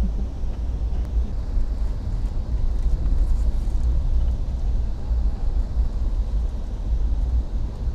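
Steady low rumble of a vehicle in motion, with no distinct events.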